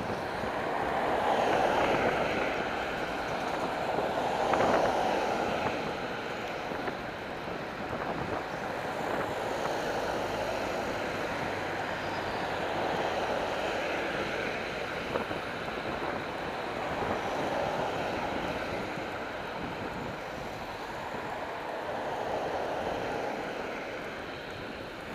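Traffic passing close to a moving bicycle, over a steady rush of wind on the microphone. Each passing vehicle comes and goes as a swell of tyre and engine noise, with the loudest about four to five seconds in.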